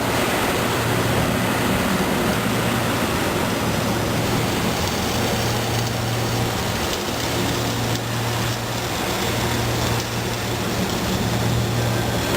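Arc welding under way with an automatic vertical-up welding carriage: a steady hiss of the welding arc over a low, steady hum.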